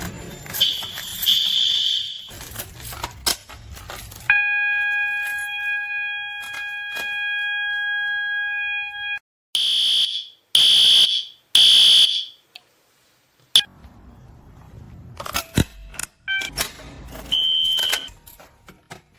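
Fire alarm horn strobe sounding: a short high horn tone, a steady multi-note tone held for about five seconds, then three loud blasts about a second apart in the three-pulse evacuation pattern. Sharp clicks and a brief high tone follow near the end.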